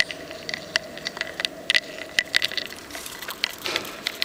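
Irregular sharp clicks and taps, several a second: small hermit crabs' snail shells knocking against a plastic dish and against each other as they scuffle. A faint steady hum lies underneath.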